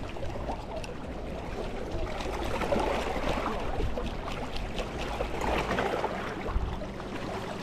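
Small waves lapping and trickling against a rocky lakeshore.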